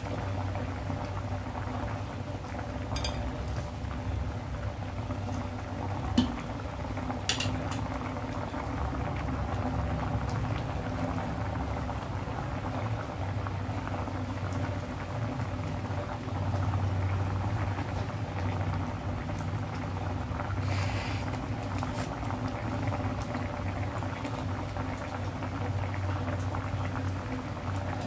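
Fish soup boiling hard in a glass pot: a steady, vigorous bubbling with a low hum underneath. A few short sharp clicks cut through, the loudest about six seconds in.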